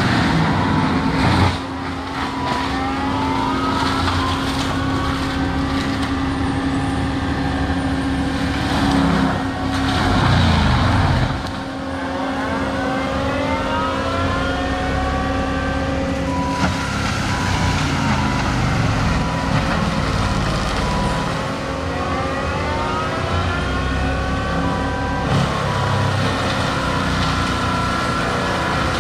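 Diesel land-clearing machine working under load: the engine runs steadily while a whine rises again and again every few seconds as the rpm climbs back up.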